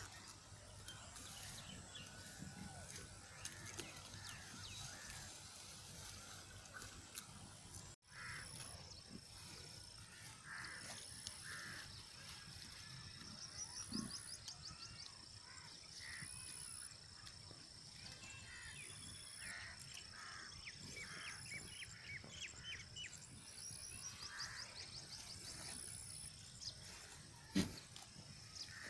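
Faint outdoor field ambience with birds calling: short chirps and repeated high, fast trills. A single sharp knock sounds near the end.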